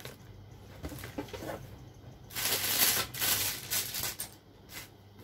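Plastic wrapping crinkling and rustling as parts are handled and pulled out of a packed box, loudest from about two to four seconds in, with a few small clicks and knocks before that.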